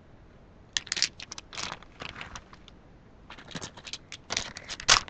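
Plastic packaging of craft supplies crinkling and clicking as it is handled and set down, in two spells of short rustles: the first about a second in, the second past halfway.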